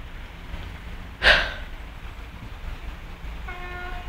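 Wind rumbling on the microphone, with a short loud rush of noise about a second in. From about three and a half seconds in, a train horn sounds a steady note.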